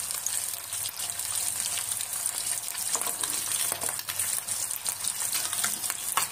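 Rohu fish steaks sizzling and crackling steadily in hot oil in a kadhai, frying to a golden brown. A few light clicks come as a perforated metal skimmer moves the pieces, about three and four seconds in.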